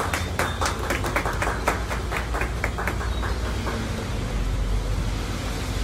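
A small group of people clapping, the claps thinning out about halfway through, over a steady low hum.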